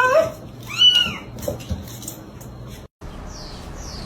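A cat meowing: two drawn-out calls, one at the start and one about a second in, each rising then falling in pitch.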